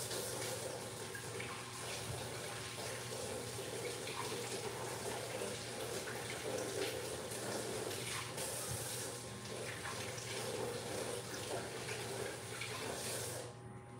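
Kitchen tap running steadily into the sink as potatoes are rinsed under it by hand. The water is shut off shortly before the end.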